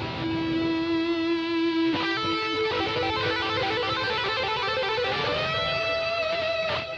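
ESP LTD H-401QM electric guitar with DiMarzio Titan pickups, played through a Boss ME-80 with delay: a long held lead note, then a short run of notes, then a note that glides up and is held with vibrato.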